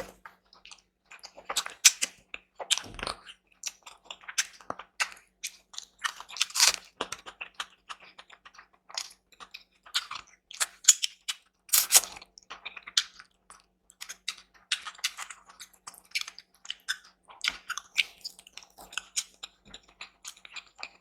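Close-miked chewing and crunching of food, a steady run of short crisp crunches and wet mouth sounds, with a few louder bites along the way.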